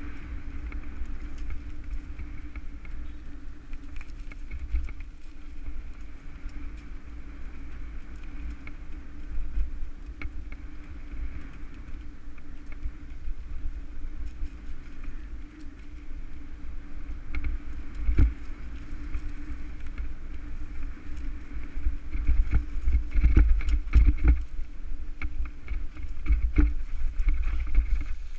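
Mountain bike riding over a dirt singletrack, picked up by a bike-mounted GoPro: a steady low rumble of wind and tyres on dirt, with rattling knocks from the bike over bumps, coming thickest near the end.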